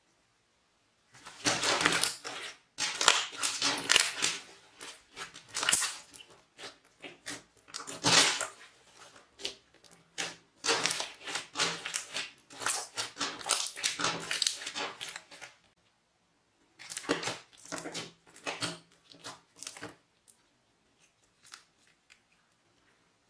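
Clear glitter slime with flower confetti being squeezed and kneaded by hand, squelching and crackling in bursts. There is a short pause past the middle and one more burst before it stops a few seconds before the end.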